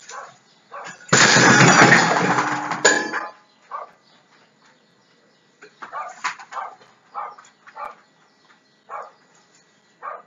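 A dog-deterrent trap on a kitchen counter goes off as the dog tugs the meat on its string: a loud metal clattering crash lasting about two seconds, with some ringing. Short barks or yaps come about once a second before and after.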